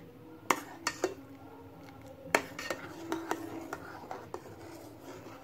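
Metal ladle stirring thick milky kheer in a non-stick kadhai, clinking and scraping against the pan in a handful of sharp clicks, over a faint steady hum.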